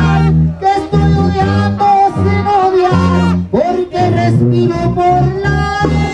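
Live brass band in the Mexican tambora style playing: tuba bass notes under trumpets carrying the melody, a passage without lyrics between sung lines.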